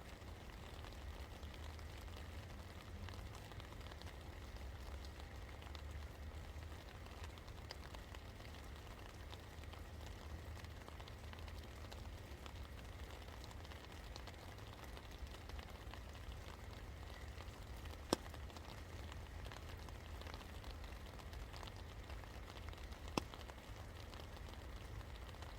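Steady rain falling, a soft even patter of many small drop ticks over a low rumble, with two single sharper drip knocks standing out near the end.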